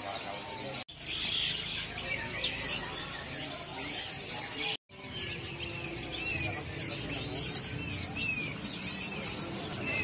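Many caged songbirds chirping and calling together, a dense mix of short chirps and high, downward-sliding whistles. The sound cuts out briefly twice, about a second in and again near the middle.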